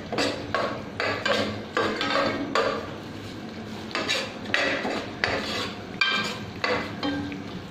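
A metal ladle scraping and stirring gram flour roasting in ghee in a metal saucepan, about two strokes a second, with a short lull about three seconds in.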